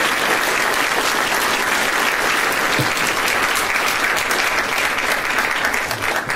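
Audience applauding, a dense, even clapping that starts to thin near the end, with single claps standing out.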